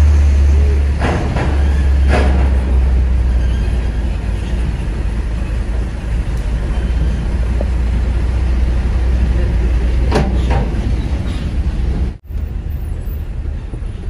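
Cargo truck's engine heard from inside the cab as it drives off a ferry, a steady low drone that drops off about ten seconds in, with a few clunks as it rolls over the ramp.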